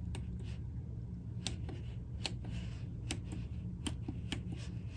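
Sony TC-K75 cassette deck's front-panel transport buttons clicking as they are pressed one after another, several clicks about a second apart, over a steady low hum. No tape mechanism starts: the transport is dead, which the owner suspects is a power supply fault.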